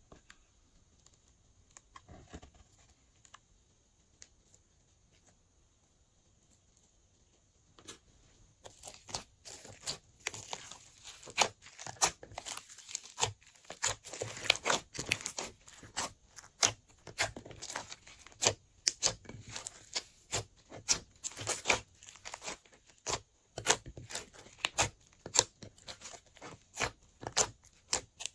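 Glossy slime being mixed, making irregular sticky clicks, pops and crackles. Mostly quiet with a few faint ticks for the first eight seconds or so, then a dense, uneven run of clicks.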